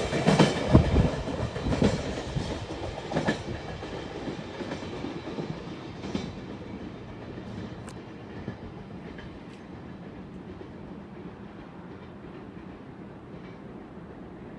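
A train running past on the rails, wheels clattering over the rail joints, the sound fading over the first few seconds as it moves away and leaving a faint steady rumble.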